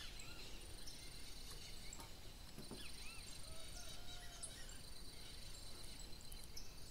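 Faint outdoor country ambience: insects trilling high and steady in stretches of about a second that stop and start, with short chirps from birds every now and then.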